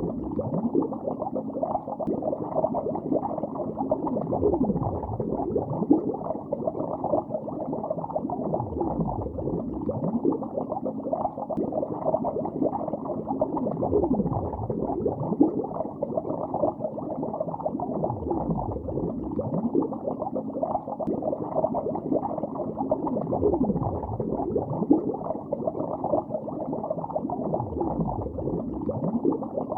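Underwater recording of bubbles rising through lake water: a dense, muffled bubbling with many small chirping bubble pops, and a deeper swell about every four to five seconds.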